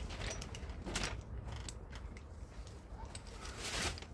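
Metal hole saw and arbor parts being handled and fitted together: scattered light metallic clicks, with a longer scrape of metal near the end.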